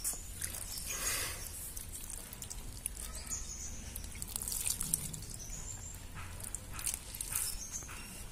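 Water splashing and dripping onto wet potting soil in a plastic pot as a newly planted money plant is watered.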